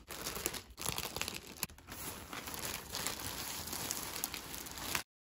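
Clear plastic poly bag crinkling and crackling as hands handle the packaged jacket, with scattered sharp crackles; it cuts off abruptly near the end.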